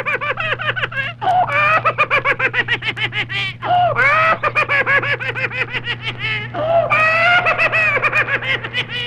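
High-pitched cackling laughter: quick 'ha-ha' pulses in long runs that start high and slide down in pitch. Each run breaks off with a gasp-like restart, three more times over the stretch.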